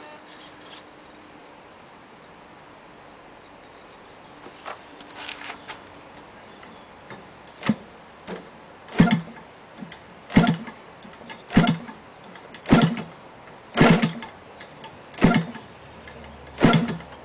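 DLE-30 single-cylinder two-stroke gasoline engine being hand-flipped by its propeller to start it: about eight sharp pops, roughly one every second and a quarter, as the prop snaps through compression, without the engine catching. A few light clicks come before the flipping begins.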